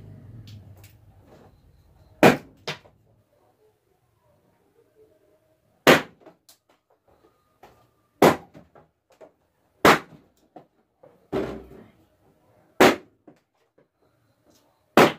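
Air-filled latex balloons bursting one after another as they are pricked with a pin on a stick: about seven loud, sharp pops spaced one and a half to three and a half seconds apart, with a few fainter pops between.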